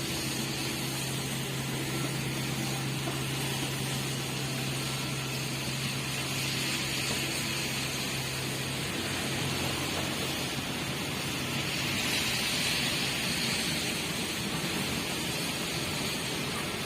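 Heavy machine engine running steadily with a constant hum, its note dropping briefly about halfway through, under a steady hiss.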